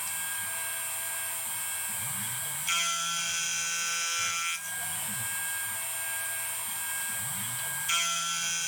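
Stepper motors of a homemade desktop CNC milling machine whining as its axes move, the pitch repeatedly sweeping up and down as they speed up and slow down. A higher whine joins about three seconds in, drops out a couple of seconds later and returns near the end.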